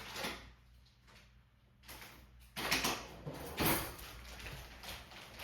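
A short quiet stretch, then a few brief clatters and scrapes of things being handled, the loudest about two and a half and three and a half seconds in.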